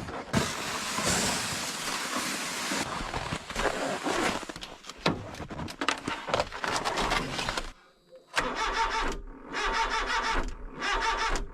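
Kei truck's starter cranking the engine in several tries separated by short pauses, the engine not firing. The driver puts it down to the battery, too cold at 0°F to turn it over.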